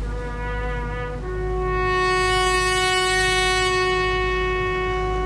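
A lone brass instrument playing a solemn call: a short higher note, then a long lower note held, swelling and slowly fading.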